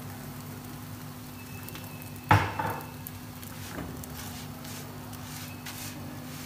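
Oil sizzling softly under a paratha on a hot non-stick tawa. A slotted spatula knocks sharply onto the pan about two seconds in, then scrapes and pats lightly as it spreads the oil.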